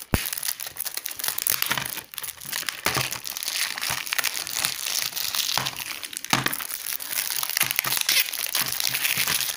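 Clear plastic shrink wrap being torn and peeled off a Blu-ray case, crinkling and crackling continuously, with a sharp snap right at the start.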